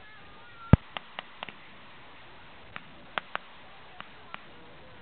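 Sporadic blank gunfire from reenactors' rifles. One loud shot comes about a second in, followed by about nine fainter, scattered shots.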